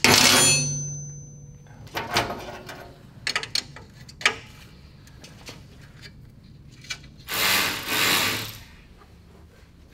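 Hand tools on the go-kart's engine-plate bolts: a sharp metallic clank with a short ringing tone at the start, then scattered light clicks of a wrench on the bolts, and a brief rush of noise about seven seconds in.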